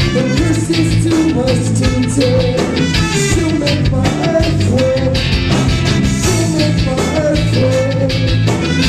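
Live reggae-rock band playing, with a trumpet line over electric guitar, bass guitar and drums in a steady groove.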